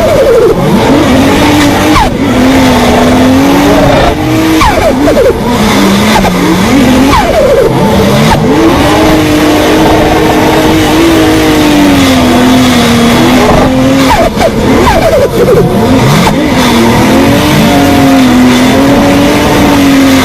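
Turbocharged car engine revving hard and lifting off again and again, each lift-off marked by a quick falling whoosh, with turbo flutter.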